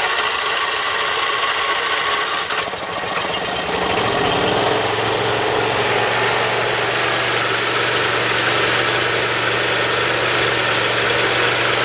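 Briggs & Stratton Intek V-twin engine running. Its speed shifts about three to four seconds in, then it settles and holds steady with no surging, after a governor adjustment and reamed carburettor jets meant to cure the surge.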